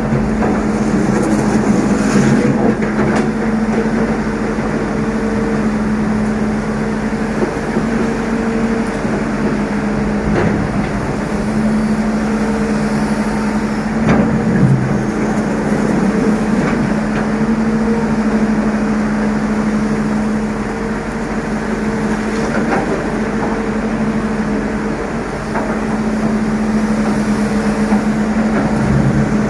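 Excavator's diesel engine running steadily at a constant pitch, with a few knocks and clanks from the machine's work.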